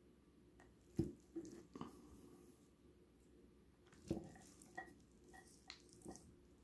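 Faint soft taps and scrapes of a spatula digging into cooked rice and knocking on the plate, a handful of times, the loudest about a second in and about four seconds in.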